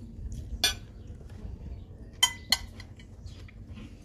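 Tableware clinking on a table: three sharp, ringing clinks, one a little over half a second in and two close together just past the middle, over a low steady rumble.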